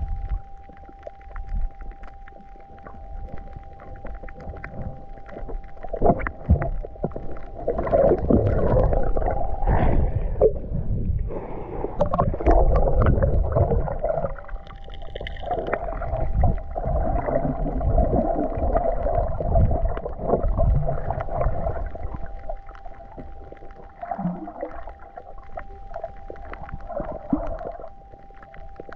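Muffled underwater sound of water movement and bubbling, swelling and fading in irregular surges, over a steady thin high tone.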